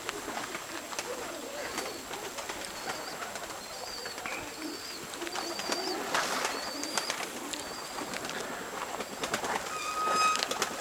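Nikolaev pigeons cooing softly, with a run of short high chirps repeating through the middle and a brief steady tone near the end.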